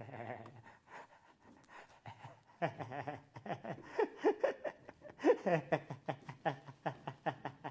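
A man's breathy, excited laughter in quick gasping bursts, starting about two and a half seconds in, with sharp clicks among them.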